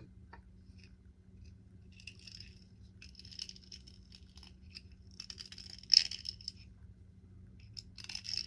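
Small 3D-printed plastic parts of a model crossing signal being handled and pressed together: several bouts of light clicking and scraping, with one sharp click about six seconds in. A faint steady hum lies underneath.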